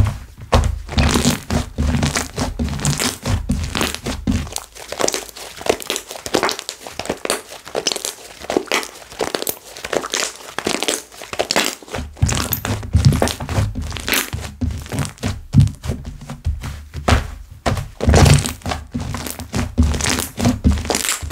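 Slime being squeezed, stretched and pressed by hand, making a dense, irregular run of sticky clicks, crackles and small pops. Dull thumps come in during the first few seconds and again from about halfway on.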